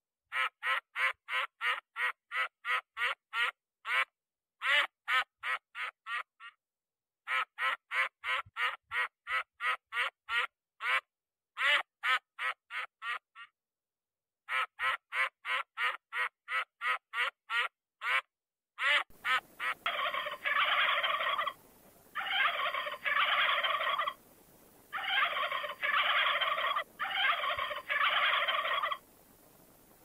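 Quacking in fast runs of about four calls a second, broken by short pauses. About two-thirds of the way through it cuts to helmeted guineafowl, which call in harsh, rapid cackling bursts of about a second and a half each with short gaps.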